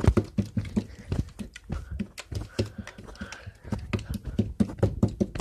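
Slime being squished and worked by hand, giving a rapid, irregular run of wet clicks and pops.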